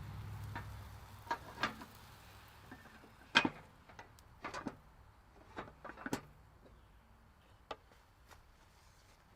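Scattered sharp clicks and knocks, like metal cookware and utensils being handled, about ten in all, the loudest about three and a half seconds in. A low rumble fades away in the first two seconds.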